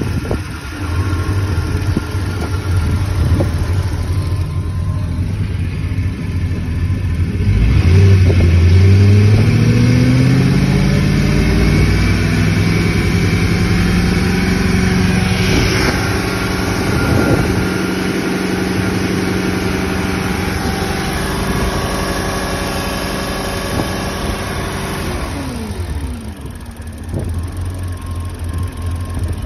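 MerCruiser 350 MAG 5.7-litre V8 marine engine running: idling, then revved up about eight seconds in and held at a steady raised speed, before the revs fall back toward idle near the end.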